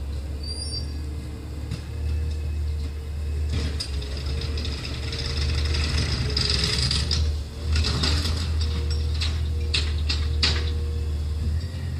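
Autocar ACX McNeilus ZR automated side-loader garbage truck: its natural-gas engine idles steadily while the hydraulic arm lifts a cart with a rising mechanical whine, then the cart is slammed and shaken out over the hopper with several sharp knocks near the end.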